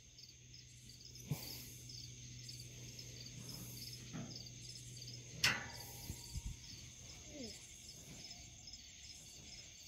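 Night insects, crickets, chirping faintly and steadily: a high trill with evenly repeating pulses. About halfway through there is one sharp click, followed by a few dull thumps.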